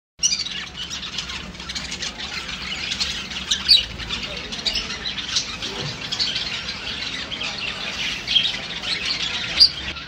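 Many budgerigars chattering together: a dense, unbroken stream of overlapping high chirps.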